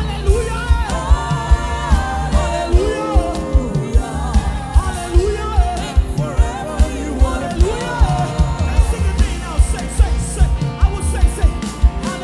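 Live gospel worship music: a band playing a steady drum beat under a gliding melody, with singing.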